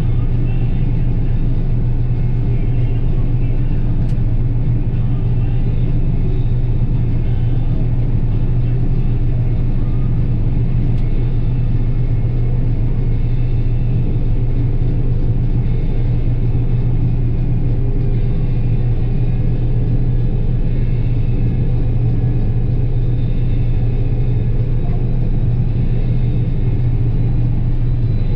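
John Deere 9770 combine running steadily while harvesting soybeans: a constant, loud low drone and rumble that holds at the same level throughout.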